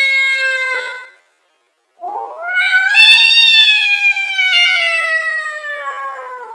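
Slowed-down angry cat yowls: a steady held yowl that fades out about a second in, then after a short silence a long yowl that rises briefly and then slowly falls in pitch.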